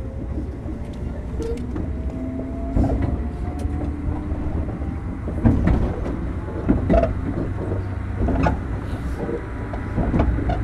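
Running sound inside the motor car of a JR Kyushu 103-1500 series electric train: a steady rumble with clicks of wheels over rail joints. A faint whine, likely from the traction motors, slowly rises in pitch.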